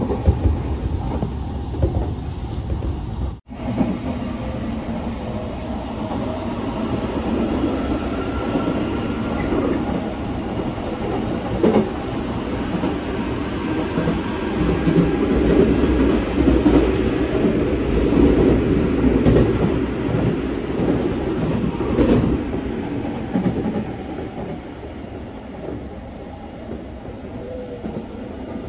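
Passenger train running along the track: a steady rumble of wheels on rail with occasional clicks of rail joints. The sound cuts out for an instant about three and a half seconds in.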